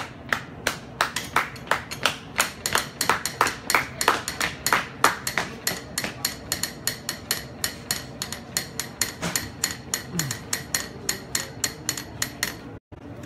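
A fast, steady series of sharp claps, about four a second, that stops abruptly shortly before the end.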